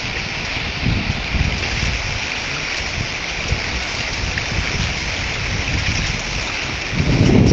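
Muddy floodwater rushing steadily down a flooded wadi in a flash flood. Wind buffets the microphone in low gusts, most strongly near the end.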